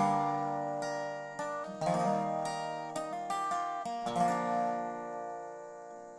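Background music: a solo acoustic guitar picking single notes and chords that ring out, the last chord fading slowly over the final couple of seconds.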